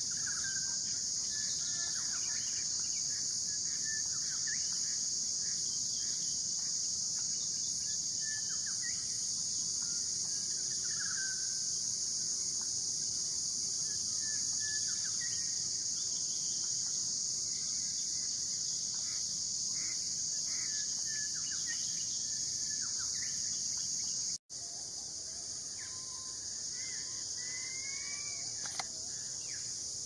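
A steady, high-pitched insect chorus with scattered short bird chirps and calls. It breaks off for an instant about 24 seconds in, then carries on with a few rising whistled bird calls near the end.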